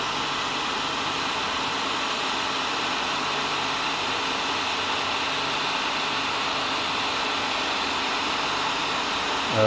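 Electric heat gun running steadily, its fan blowing a constant rush of hot air to shrink heat shrink tubing.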